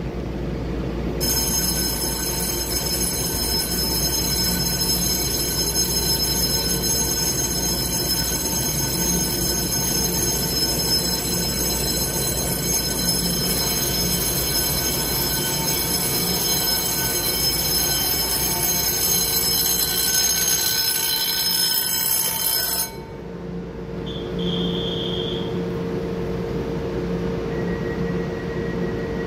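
Electric station bell ringing continuously for about twenty seconds and cutting off suddenly, over the steady hum of a stopped TRA EMU900 electric multiple unit. A short high beep follows soon after the bell stops.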